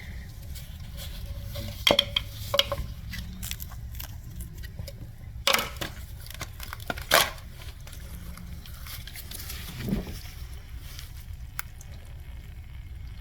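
Parts of a car's fuel pump module being handled and taken apart: a few sharp clicks and knocks, the loudest about two, five and a half and seven seconds in, over a low steady hum.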